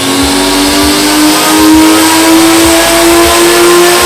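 Van engine under full load on a chassis dyno during a power run, its note climbing steadily in pitch and levelling off near the top near the end.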